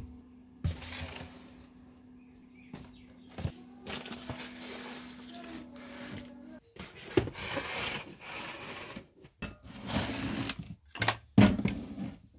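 Hands moving things around on cupboard shelves: cardboard boxes sliding and rustling, packets being shuffled, and a plastic basket of bottles and spray cans being handled, with scrapes and a few sharp knocks, loudest near the end. A steady low hum runs underneath and stops a little past halfway.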